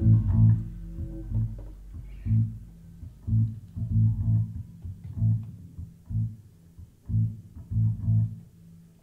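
Electric bass guitar playing a sparse line of single plucked low notes, about two a second, after a full-band chord dies away at the start. The notes grow quieter and stop near the end.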